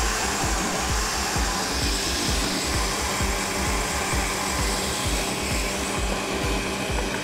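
Electric countertop blender running steadily, blending a liquid mango lassi of mango, yogurt and ice. Background music with a steady beat plays underneath.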